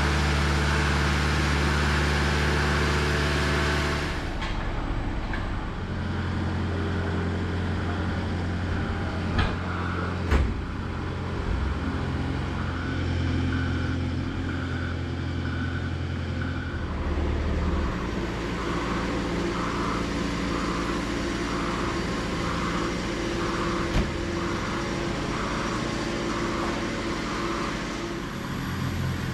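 Engine of a self-propelled boat hoist running steadily as it carries a sailboat across the yard. The engine note shifts a few times, a faint beep repeats about once a second in the second half, and there are a couple of brief knocks.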